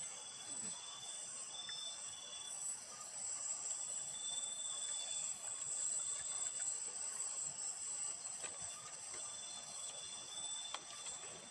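Night insect chorus: a steady high-pitched buzzing with a lower trill that comes and goes, and a few faint clicks.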